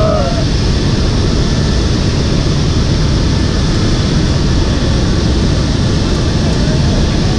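Loud, steady engine and airflow noise of a military transport plane in flight, heard from inside its cargo hold.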